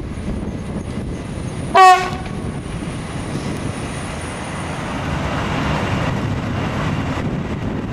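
Class 186 (Bombardier Traxx) electric locomotive sounding one short horn blast about two seconds in, over the steady rumble of its loaded car-carrier wagons rolling past, which swells a little later on.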